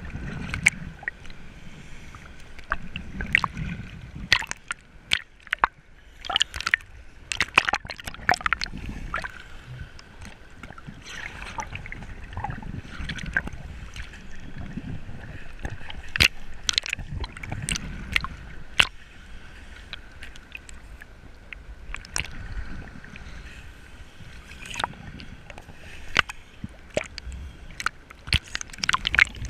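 Water sloshing and gurgling around a diver's camera held at the surface, with frequent irregular sharp clicks and knocks.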